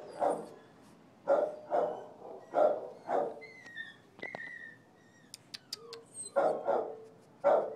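Small dog in a kennel run barking in short, sharp barks: about five in the first three seconds, a pause of about three seconds, then three more near the end.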